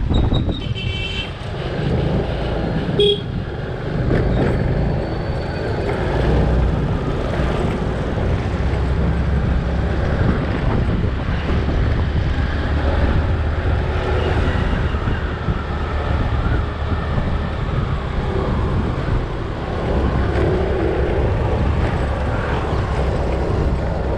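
Steady low rumble of a motorcycle riding in traffic, with wind buffeting the microphone. A vehicle horn toots near the start and again briefly about three seconds in.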